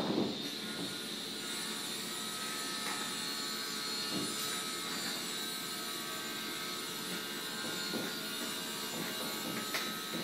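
A wide wooden-backed brush swishing back and forth across washi paper as it is smoothed onto a fusuma frame, in repeated rubbing strokes. A steady high whine runs underneath.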